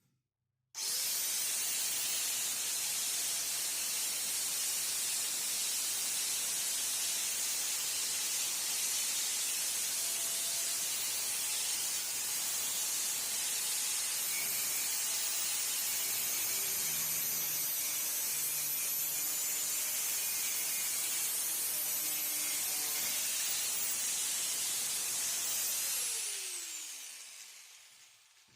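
Bosch GWS 750-100 angle grinder switched on about a second in, running at a steady high speed with a loud hiss, then switched off near the end and spinning down with a falling whine.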